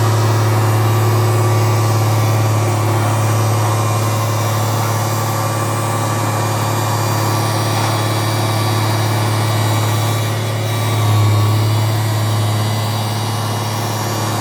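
An engine running steadily at idle, a loud low drone that swells briefly about eleven seconds in.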